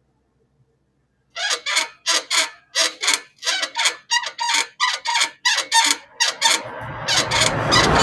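Motorcycle shock absorber squeaking each time the suspension is pushed down and released, a rhythmic squeak about two or three times a second: the shock noise to be fixed. About six and a half seconds in, a louder rushing noise joins and runs under the squeaks.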